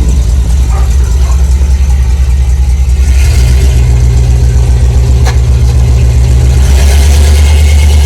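Chevrolet 454 SS pickup's 7.4-litre big-block V8 idling with an even, pulsing low rumble, its note shifting slightly about three seconds in and again near the end.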